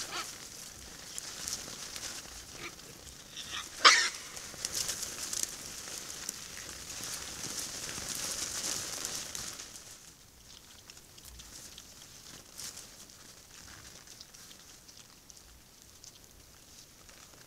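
Wild boar herd foraging on snow-covered leaf litter: crackling and rustling from rooting snouts and trotters, with one short sharp noise, the loudest, about four seconds in. It gets quieter about ten seconds in.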